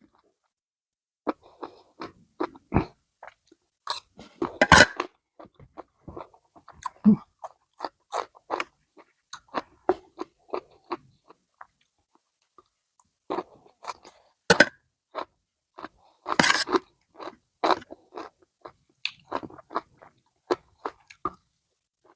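Close-miked chewing and crunching of a spicy apple snail salad eaten with raw side vegetables, in irregular bites with a short pause midway.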